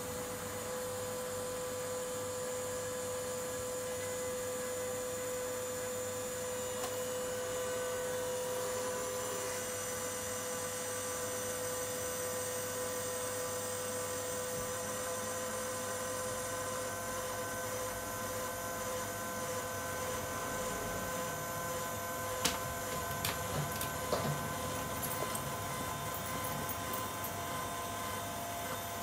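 Tipper mechanism of a 1/14 scale RC Mercedes-Benz dump truck whining steadily as it lowers the tipper bed, with a few sharp clicks about three-quarters of the way through.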